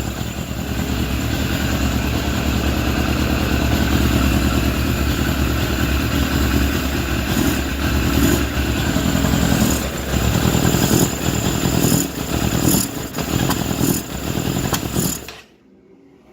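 Suzuki GSF600 Bandit's carbureted inline-four engine running with the air filter off, its intake giving irregular sharp burps through the second half. The burps are probably tied to a fueling or carburettor problem. The sound cuts off suddenly near the end.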